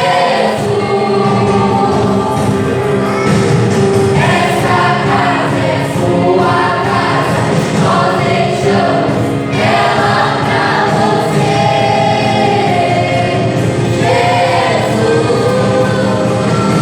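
Church worship group singing a gospel song together as a choir, with steady musical accompaniment.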